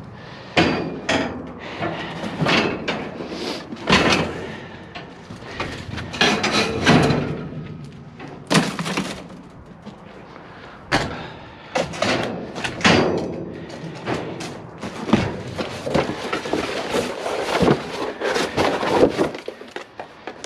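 Long scrap metal pieces clanking and knocking together as they are handled and loaded, with repeated irregular bangs and thuds.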